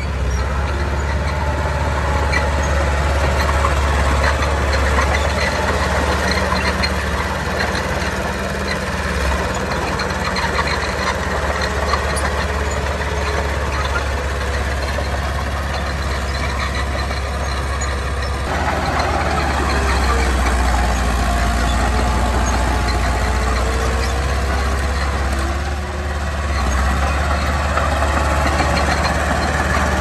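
Diesel engines of earthmoving machinery running steadily, a low drone with noisy clatter above it; the sound shifts about eighteen seconds in.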